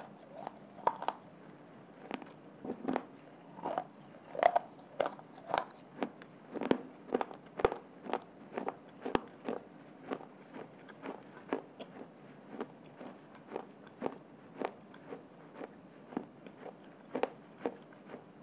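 A person chewing hard, dry baked clay from mini clay diyas and slate pencil pieces, making sharp crunches about twice a second in a steady rhythm.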